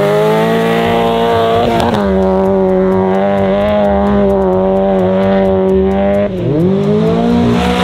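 Mazda Miata's four-cylinder engine revving hard and held at a high, steady pitch. There is a brief dip about two seconds in, and a sharper drop about six seconds in before it climbs again.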